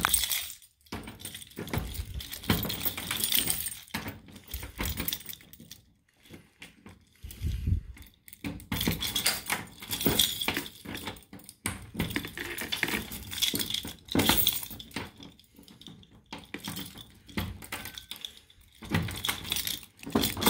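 Keys on a ring jangling and clicking against a vending machine as a tubular key, its notch shaved off, is turned in the lock and the door is worked open: a run of irregular metal clinks, rattles and knocks.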